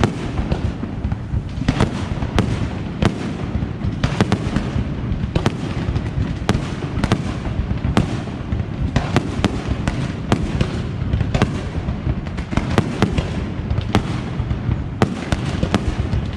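Aerial fireworks display: a continuous barrage of shell bursts and sharp reports, many a second, over a steady low rumble and crackle.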